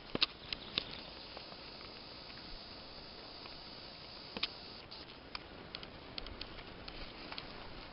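Forest ambience: irregular small clicks and crackles over a steady hiss, a few close together in the first second and one sharper click about halfway through.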